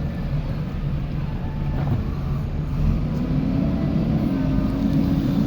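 JCB 3DX backhoe loader's diesel engine running steadily under work, its note stepping up a little about halfway through.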